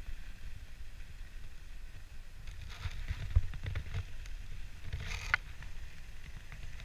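Dog sled gliding over a groomed snow trail: runners hissing and scraping on the snow over a low, uneven rumble. There are louder scrapes about three seconds in and again about five seconds in.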